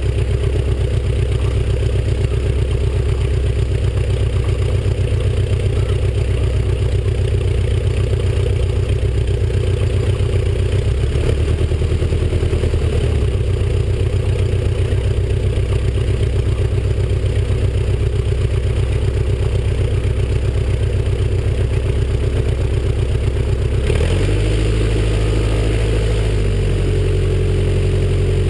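Stampe SV.4 biplane's engine and propeller running steadily as it taxis on grass. About 24 seconds in, the engine speed changes and settles on a new steady note.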